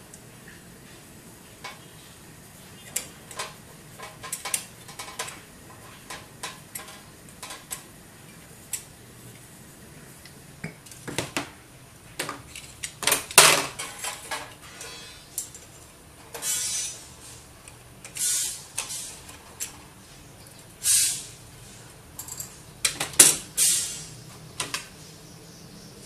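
Metal tweezers clicking and scraping against ceramic processors and their caps on a hot plate's metal grille. The caps are being prodded to test whether the heat has melted the solder holding them. There are scattered light clicks at first, then several longer scrapes in the second half.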